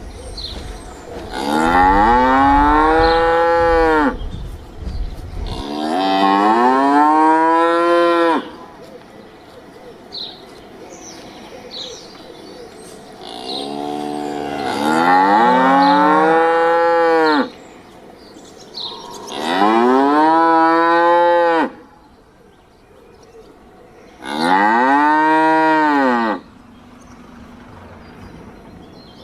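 Cow mooing: five long, loud moos, each rising and then falling in pitch, with short pauses between them.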